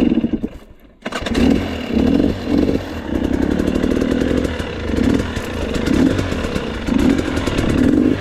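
Dirt bike engine running as the bike is ridden down a steep slope. Its sound falls away during the first second, then comes back loud about a second in and carries on unevenly.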